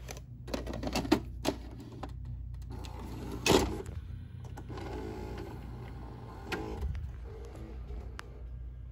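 VHS cassette going into a Sharp VC-H986U VCR: a few handling clicks, a loud clunk as the cassette carriage takes the tape in, then the loading mechanism's motor whirring with clicks for a few seconds as it threads the tape to play.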